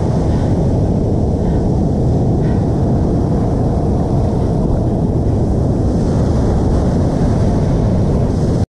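Steady rushing noise of surf breaking on a sandy beach, with wind buffeting the microphone. It cuts off abruptly to silence just before the end.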